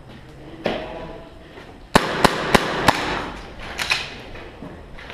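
Airsoft rifle fired four times in quick succession, about three sharp snaps a second, over a loud rustling noise of the player moving, with a single click just before.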